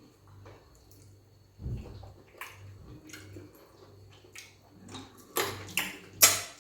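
Wet eating sounds of people eating peanut soup with fufu: soft mouth smacks and clicks, with a few louder slurps near the end.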